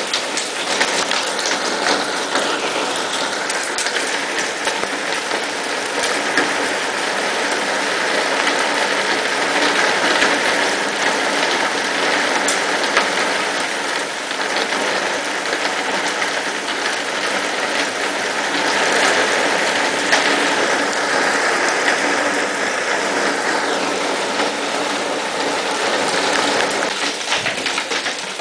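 Hailstorm with rain: a dense, steady clatter of hailstones and drops striking wet ground and water.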